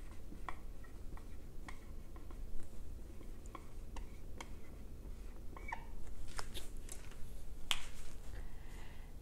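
Marker writing on a whiteboard: faint scattered taps and a few short squeaks of the felt tip on the board, with a sharper click near the end.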